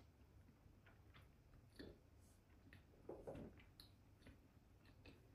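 Near silence, with a few faint clinks of a metal spoon on a ceramic bowl and plate, and a soft rustle about three seconds in.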